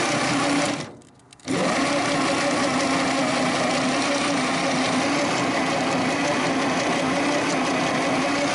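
Starter motor cranking the Chrysler industrial 218 flathead six over at a steady even pace without it firing, with a brief break of about half a second about a second in. It rolls over pretty good but doesn't sound like it's got a lot of compression.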